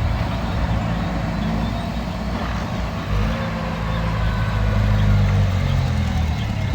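Heavy diesel engine of the recovery machinery running steadily, getting somewhat louder about four to five seconds in.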